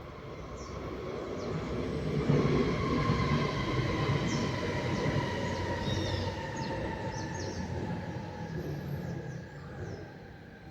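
A train passing: a low rumble swells over about two seconds and then slowly fades, with several steady high tones from the wheels that gradually drop in pitch. Birds chirp faintly over it.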